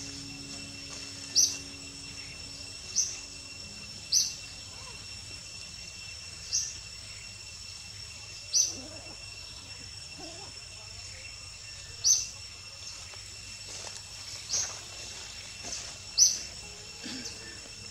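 Tropical forest ambience: a steady high insect drone, with a short sharp high chirp repeating irregularly every one to three seconds.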